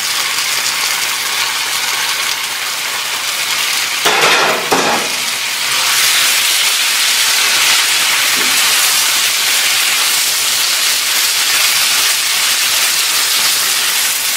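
Stir-fry sizzling in a hot nonstick pan as chicken and vegetables are scraped in onto the noodles and stirred with a silicone spatula. There is a brief clatter about four seconds in, and the sizzle grows louder from about six seconds in.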